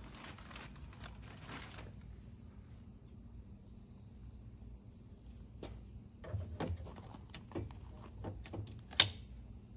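Removable steering wheel of a Morgan 3 Wheeler being fitted onto its quick-release boss: light clicks and knocks in the second half, then one sharp click near the end, over a faint steady high hiss.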